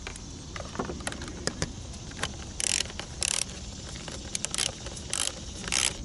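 Ratchet wrench with an 8 mm socket clicking in several short runs, mostly in the second half, among lighter scattered clicks of metal on metal, as it works the tight screws on an engine-bay fuse box cover.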